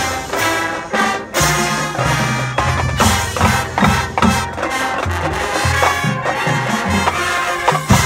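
High school marching band playing a loud full-band passage: brass and woodwinds over sustained low brass notes, with drums and pit percussion punching out accented hits, and a strong hit near the end.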